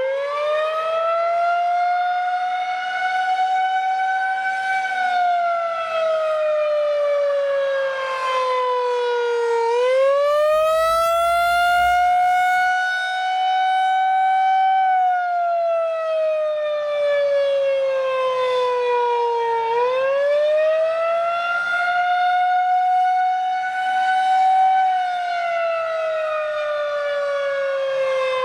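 Federal Signal 2001-130 electromechanical warning siren sounding a wail in a routine test: its pitch rises for a few seconds, holds, then slides down over about five seconds. The cycle repeats roughly every ten seconds, three times.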